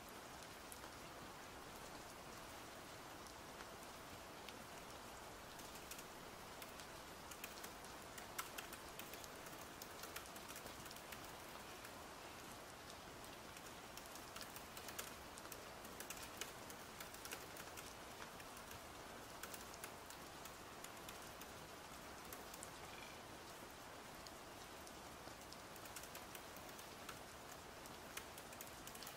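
Faint steady rain with typing on a MacBook laptop keyboard, quick irregular key clicks that come more often from about six seconds in.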